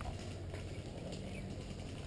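Footsteps on a leaf-littered dirt trail and foliage brushing past, with a low rumble underneath and a few light crackles.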